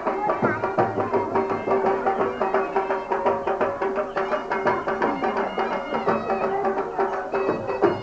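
Traditional dhamal music: drums beating a fast, dense rhythm, with a reed pipe holding a steady high note over them.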